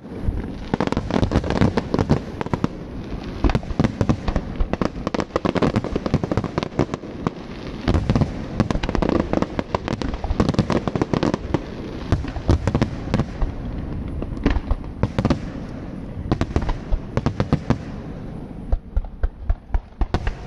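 Aerial fireworks display: a dense barrage of booming and crackling bursts, one after another with hardly a gap, easing slightly near the end.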